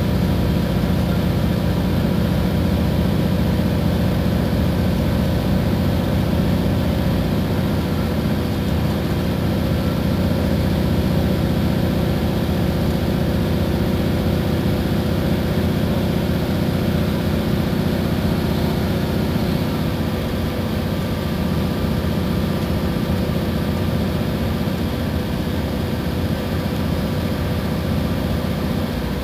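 Iveco Crossway bus's engine running steadily with a low drone, heard from aboard the bus. It eases off slightly about two-thirds of the way through.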